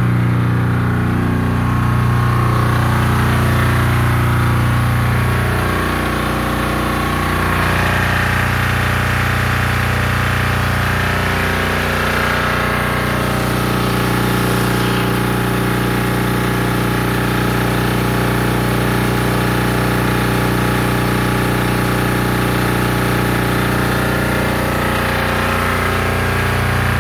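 Military 3 kW diesel generator running steadily and very loud at close range, under load while charging a battery bank, with a steady low drone and mechanical clatter.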